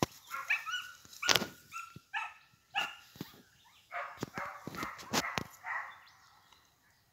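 Hunting dogs giving a run of short, high yelps and barks, mixed with rustling and footsteps through grass. The calling fades away near the end.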